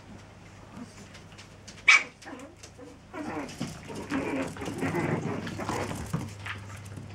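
Seven-week-old chihuahua puppies yapping at play: one sharp, loud yap about two seconds in, then a busier stretch of small cries and scuffling from about three seconds in.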